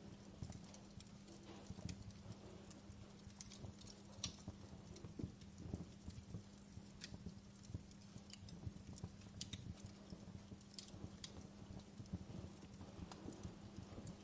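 Wood fire burning in a fireplace: irregular sharp crackles and pops over a low rumble, with a steady low hum underneath.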